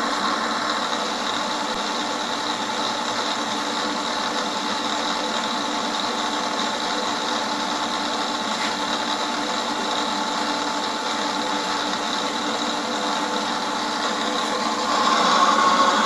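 Drill press motor running steadily with a tapping head, threading holes in a steel table. The sound grows louder about a second before the end.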